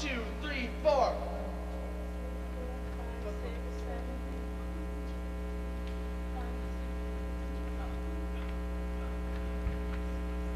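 Steady electrical mains hum from the sound system. Two short falling vocal swoops about a second apart at the start, and a single click near the end.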